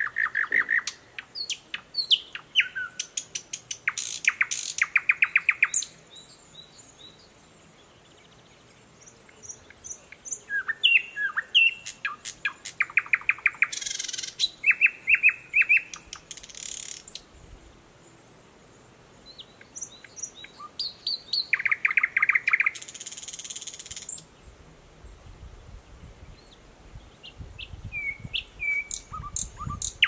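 Thrush nightingale singing: loud phrases of fast repeated clicking notes, whistled slurs and short rasping bursts, broken by pauses of a few seconds.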